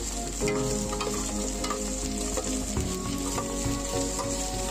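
Browned chicken pieces sizzling in hot oil in an aluminium pan. A metal spatula stirs them, scraping and tapping against the pan now and then.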